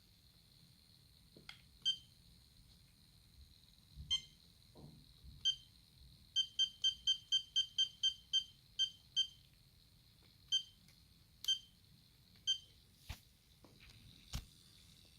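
iCharger X6 battery charger beeping: short electronic beeps, first singly, then a quick run of about a dozen at roughly four a second in the middle, then singly again. A faint steady high whine runs underneath, and two clicks come near the end.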